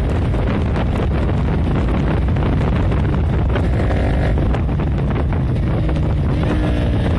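Wind rushing over the rider's microphone while a Honda CBR150R single-cylinder motorcycle is ridden along, its engine tone showing through the wind now and then.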